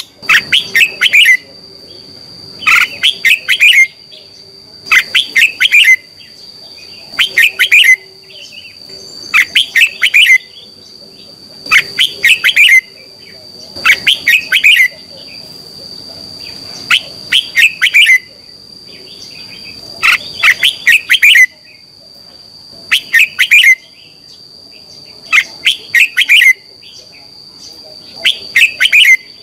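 Red-whiskered bulbul singing: short phrases of quick, loud whistled notes, repeated every two to three seconds. A steady high-pitched whine runs underneath.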